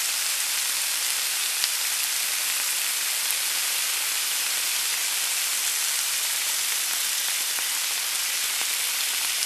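Steady sizzling hiss of oil frying, unbroken and even throughout.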